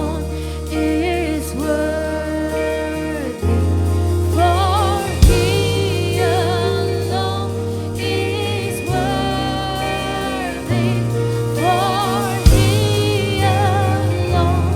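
Gospel song: a sung melody with vibrato over steady held bass notes, with a sharp accent twice.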